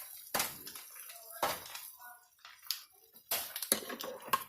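Kitchen handling noises: about six separate knocks and clinks, like dishes and utensils being set down and moved, with a faint ringing tone briefly near the middle.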